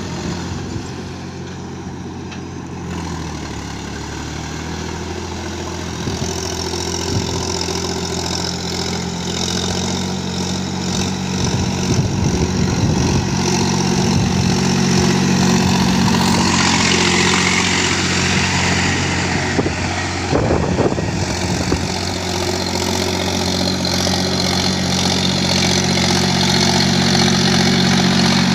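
Mahindra 265 tractor's diesel engine running steadily, its note shifting about three seconds in and growing louder about halfway through.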